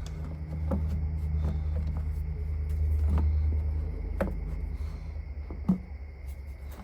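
A few light clinks and knocks of tools and engine parts as the intake manifold is fitted back on, the last one the loudest, over a steady low hum.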